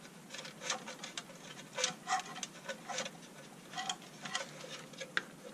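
Wires and the plastic lantern casing being handled: an irregular run of light clicks and taps, a dozen or so, a few with a short ring.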